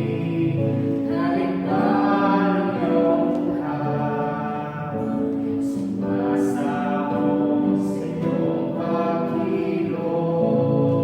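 Congregational worship song: several voices singing a slow Christian praise song together, with instrumental backing.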